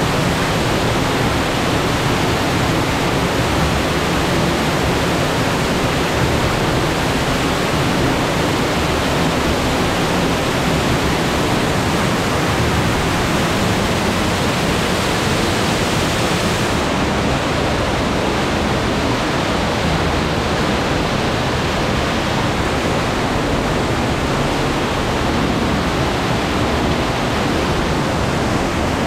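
Waterfall pouring into a pool inside a cave, a loud, steady rush of falling water. The hiss turns a little duller about halfway through.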